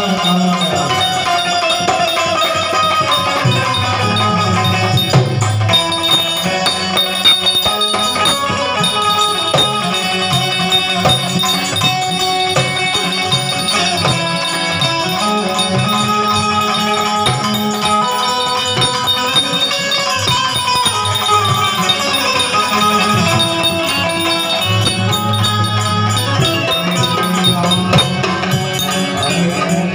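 Harmonium playing a devotional melody over rhythmic percussion with a rattling beat.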